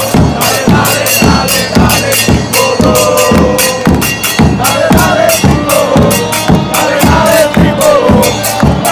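Voices singing a chant over a steady, driving drum beat.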